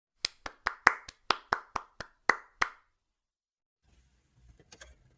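Hand clapping: about eleven quick, sharp claps at roughly four to five a second, lasting about two and a half seconds.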